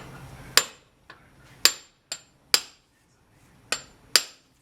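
Hammer striking metal: about six sharp blows at uneven intervals, each with a brief metallic ring.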